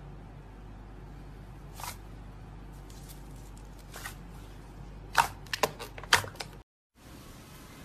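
Thick slime pressed and pulled apart by hand, giving a few soft sticky clicks and pops, with a quick cluster of them about five to six seconds in.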